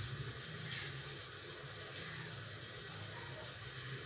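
Steady low hum with a faint even hiss over it, no distinct knocks or events.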